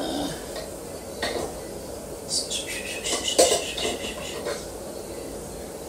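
Kitchenware clattering: scattered metal and dish clinks and knocks, with a quick run of them about two to three and a half seconds in.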